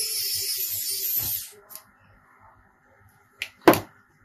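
A steady hiss that cuts off about a second and a half in, followed near the end by a light click and then a sharper knock.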